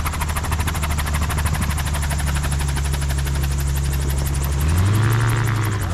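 Gyroplane's engine and propeller running with a steady low drone and a fast, even chop. About four and a half seconds in the pitch steps up as the engine revs higher.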